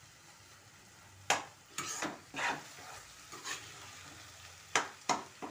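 Steel spatula stirring and scraping a thick vegetable curry around a non-stick kadai, in about seven irregular strokes starting about a second in, two close together near the end. A faint steady sizzle runs underneath.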